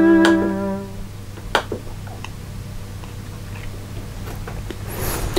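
A sequenced chord on a MIDI keyboard synthesizer, driven from a Commodore Amiga, dies away within the first second as playback stops. After it come a few light mouse clicks over a low steady hum.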